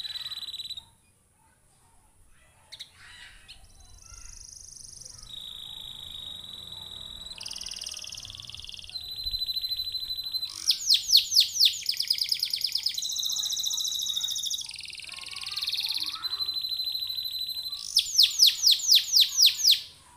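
Domestic canary singing in long rolling phrases of held whistled notes and fast trills, with a short pause about a second in. Twice, in the middle and near the end, it breaks into loud runs of sweeping repeated notes at about four or five a second.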